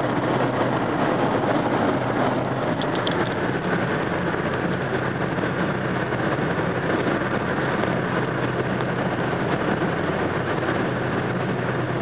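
Steady engine and road noise inside a car's cabin at highway speed.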